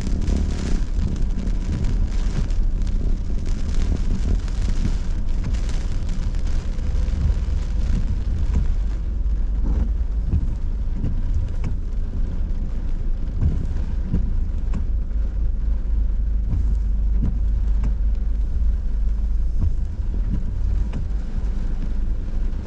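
Inside a car driving in hurricane rain: a steady low rumble from the car, with rain hitting the car and a hiss that is heavier for the first several seconds.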